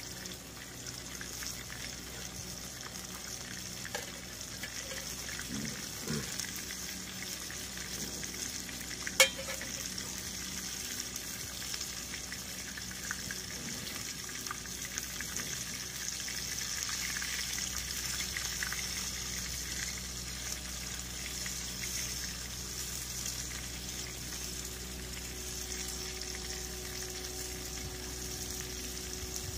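Noodles cooking in a small pot on a camp stove: a steady sizzling hiss, with a spoon stirring in the pot and one sharp click about nine seconds in.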